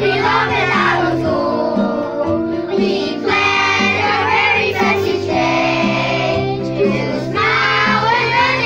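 Children's voices singing a school song together over instrumental accompaniment with steady held bass notes.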